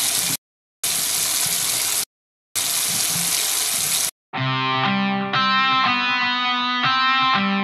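Tap water running into a sink, chopped into three stretches with sudden half-second silences between them. About four seconds in, the water gives way to music of sustained, ringing notes.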